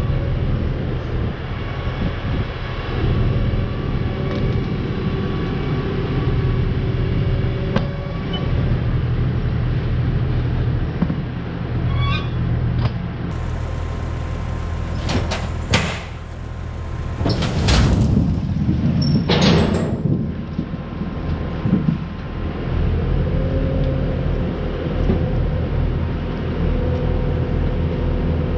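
Vehicle engine running steadily. About halfway through, a few loud rushing bursts come over it in quick succession.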